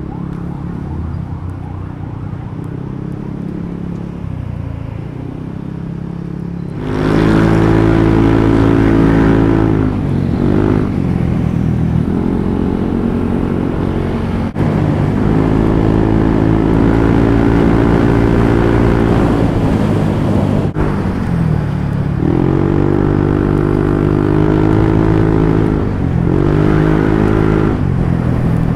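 Yamaha NMAX 155 scooter's single-cylinder engine through an aftermarket JVT exhaust. It runs quietly at first, then about seven seconds in pulls away loudly. Its note dips and climbs again a few times as the throttle is eased and reopened while riding.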